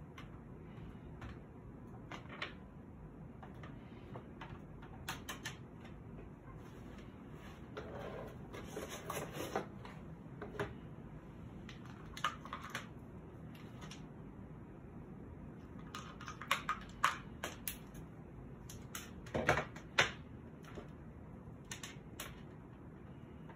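Irregular clicks, taps and rattles of gear being handled on a desk while a laptop, webcam and charging cables are set up, bunching into short flurries, the loudest knocks coming about twenty seconds in. A low steady hum lies underneath.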